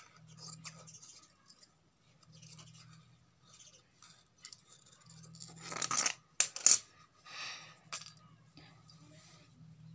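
Large tailoring scissors cutting through cotton blouse fabric in short snips, with the cloth rustling as it is handled. About six seconds in comes a louder stretch of rustling with a few sharp metallic clicks.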